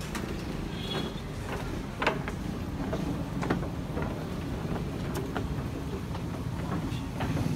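Footsteps on a wooden plank walkway: a loose series of short knocks, some about half a second apart, over a steady low rumble.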